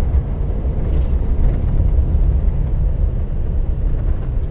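Steady low rumble of a lorry's engine and road noise, heard from inside the cab while driving.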